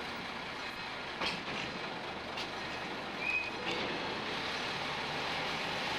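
Esslinger diesel railcar running on the track: a steady rumble and rail noise with a few faint clicks and a brief high squeak about three seconds in.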